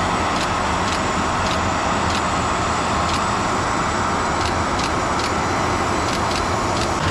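Steady, loud machine noise with a thin high whine, the running of equipment around a parked airliner. Over it, a camera shutter clicks repeatedly, about one to two clicks a second, while photos are taken.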